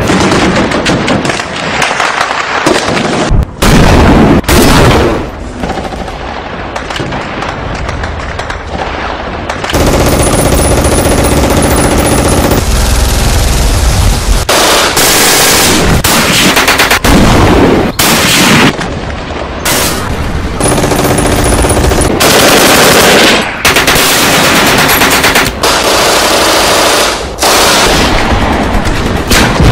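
Loud machine-gun fire in bursts, broken by short pauses.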